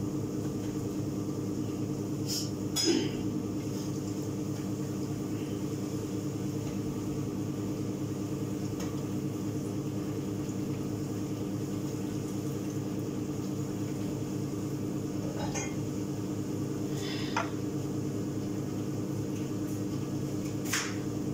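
Steady, even hum of a kitchen range-hood extractor fan, with a few sharp clinks of a utensil against a pan on the stove.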